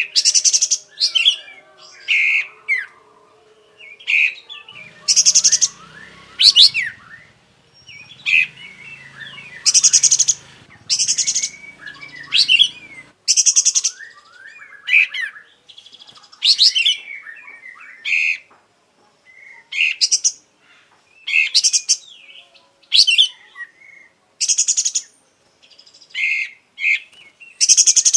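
Sooty-headed bulbul (kapas tembak) singing hard, a quick run of short phrases about every second or two: clear whistled glides mixed with harsh, buzzy rattles. A faint low hum sits under the song for several seconds near the middle.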